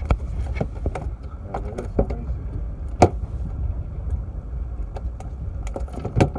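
Scattered knocks and taps on a fiberglass boat deck as a landed fish is unhooked with pliers, the sharpest about three seconds in, over a steady low rumble.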